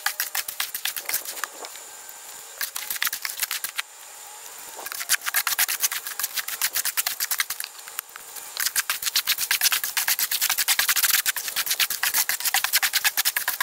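A long-handled hoe scraping and chopping through concrete mix in a metal wheelbarrow, in rapid gritty strokes that come in bouts with short lulls.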